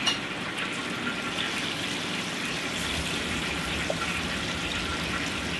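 Lobster pieces deep-frying in hot oil: a steady sizzling hiss, with a short knock right at the start.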